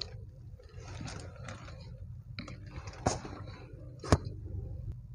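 Handling noise from a handheld camera moved around inside a car cabin: faint rustling over a low rumble, with two sharp clicks about a second apart near the middle.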